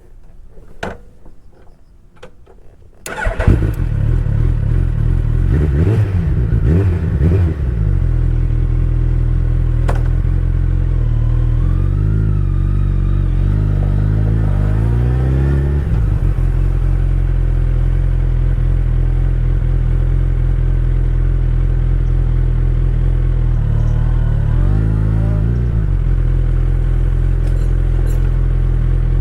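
Suzuki Hayabusa inline-four motorcycle engine starting about three seconds in after a few clicks, revving unevenly before settling to a steady idle. It is then revved up slowly, drops back suddenly to idle, and gets one short blip of the throttle near the end.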